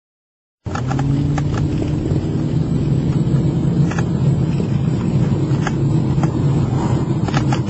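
Police car driving at highway speed, heard from inside the cabin: a steady engine and road drone with scattered clicks. The sound cuts in abruptly about half a second in.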